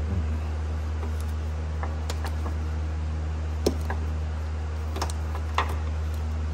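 A few light, scattered clicks and ticks of the door wiring harness and its plastic plug connector being worked loose by hand, over a steady low hum.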